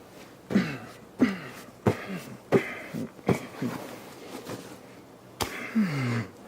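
Short vocal grunts falling in pitch, about five in quick succession, each starting with a sharp snap. A lone sharp snap follows, then one longer falling groan near the end.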